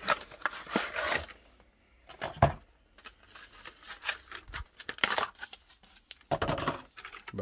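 Cardboard box and clear plastic tray of a Logitech G502 Hero gaming mouse being opened and handled: irregular rustling and scraping with sharp plastic clicks, the loudest a snap about two and a half seconds in.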